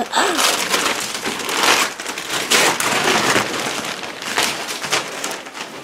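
Christmas wrapping paper being ripped and crumpled by hand, a run of rustling tears and crinkles.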